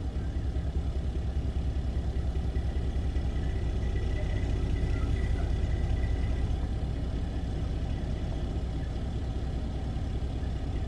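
Large vehicle engine idling with a steady low, rapidly pulsing rumble, with a faint thin high whine for a few seconds in the middle.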